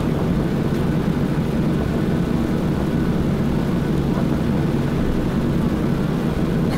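Steady low drone and rumble inside the cabin of a Boeing 737-800 taxiing, its CFM56-7B engines running at low taxi thrust.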